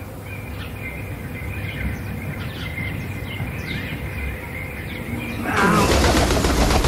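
Small birds chirping with short high notes over a steady high trill and a faint low rumble. About five and a half seconds in, a sudden loud burst of rapid wing flapping starts as a black crow takes off.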